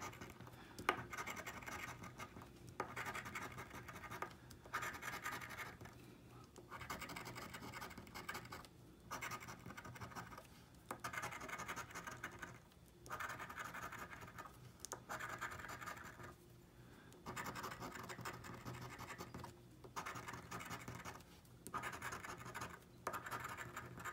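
A coin scratching the coating off a scratch-off lottery ticket, in bouts of a second or two with short pauses between.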